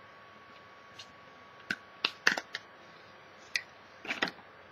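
Hands handling an unboxing's plastic packaging and silicone sleeves: scattered light clicks and taps, with a cluster about two seconds in and a few more near the end.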